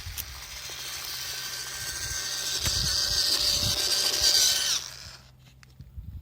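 WPL C24 RC truck's small electric motor and gearbox whining as it drives, growing louder, then cutting off sharply about five seconds in. A few faint clicks follow.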